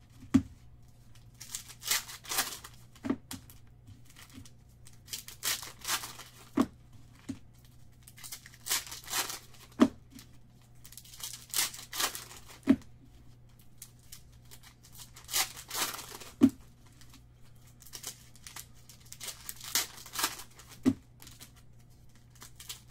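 Trading card pack wrappers being torn open and crinkled, in short rustling bursts every second or two, with a few sharp light knocks among them.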